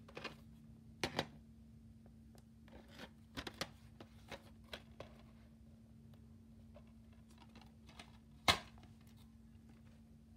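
Plastic DVD case being handled: scattered clicks, taps and short rustles of the case and its plastic sleeve as it is turned over, with one louder snap about eight and a half seconds in as the case is opened.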